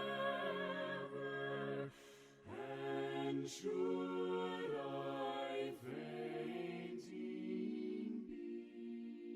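A cappella group of voices singing a slow hymn in long, held notes with vibrato, with audible breaths between phrases. A final chord is held near the end.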